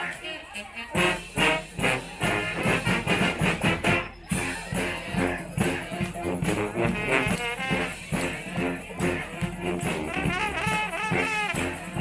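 Live street brass band playing: trombones and trumpets over drums and hand percussion in a steady beat, with a brief drop about four seconds in.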